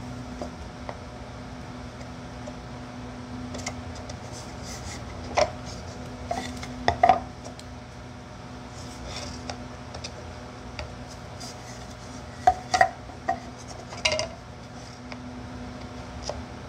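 Wooden lid parts being handled and set down on a workbench among bar clamps. Two clusters of sharp knocks and clacks come about five to seven seconds in and again about twelve to fourteen seconds in, over a steady low hum.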